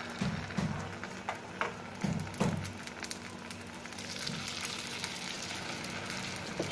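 Paniyaram batter sizzling in hot oil as it is spooned into the cavities of a paniyaram pan. A few soft knocks come in the first half.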